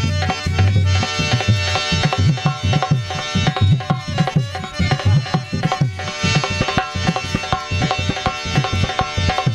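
Instrumental passage of Indian devotional kirtan music: fast hand-drum strokes in a quick rhythm over steady held notes from a melody instrument.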